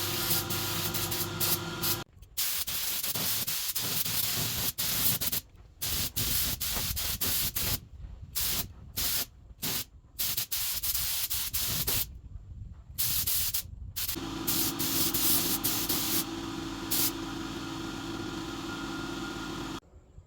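Compressed air hissing in repeated bursts, switched on and off sharply, some long and some very short. A steady hum runs under it for the first two seconds and again for the last six.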